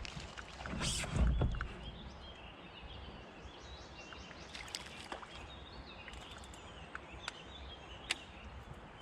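Birds chirping in the background. About a second in there is a low thump with some rustling, and later a few sharp clicks.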